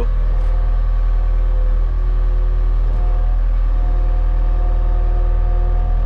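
Skid steer engine running steadily, heard from inside the cab.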